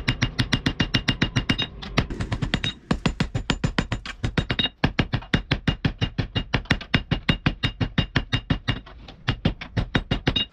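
Hand hammer forging a red-hot steel blade on an anvil: fast, even blows about five a second, each a sharp clang, with the anvil ringing between blows. The rhythm breaks off briefly a couple of times.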